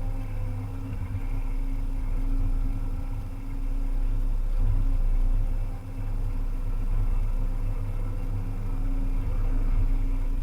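Volvo EC300E excavator's diesel engine running steadily at work, rising and easing a little in loudness, with a brief dip about six seconds in.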